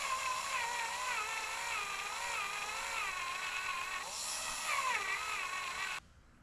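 Power drill boring into a broken steel bolt seized in an aluminium casting, its motor pitch wavering up and down under load. It stops suddenly near the end.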